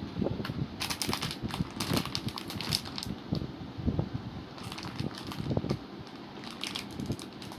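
Keys of a HyperX Alloy Origins Core mechanical keyboard clacking in quick bursts of typing, about four bursts with short pauses between them.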